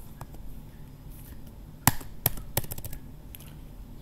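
Computer keyboard keys being pressed: a few sharp separate key clicks, the loudest about two seconds in, followed by a quick cluster of presses.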